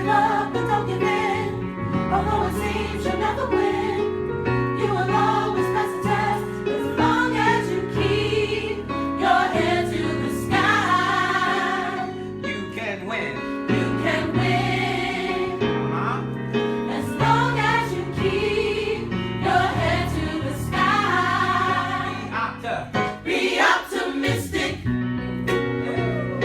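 Gospel choir singing in full harmony over a band with a steady bass line.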